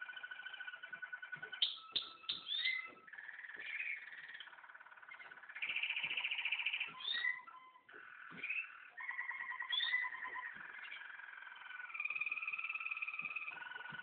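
American Singer canary song: a continuous run of fast rolling trills and repeated notes, switching to a new phrase every second or two, with quick rising and falling whistled notes in between.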